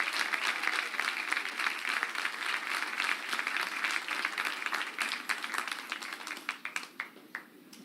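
Audience applauding, the clapping thinning out to a few last scattered claps and dying away near the end.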